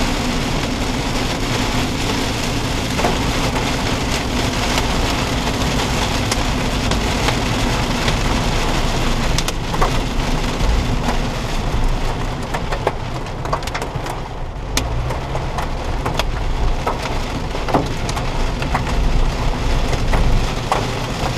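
Heavy rain pounding on a moving car's windshield and roof, heard from inside the cabin, over steady wet-road tyre noise, with scattered sharp ticks of drops striking the glass.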